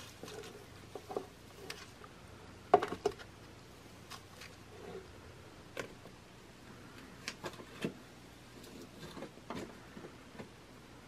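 Light handling sounds: soft rustling of a foam pool-noodle collar and scattered small clicks and taps of a plastic net pot being pressed together and set into a hole in a plastic tote lid. The sharpest tap comes about three seconds in.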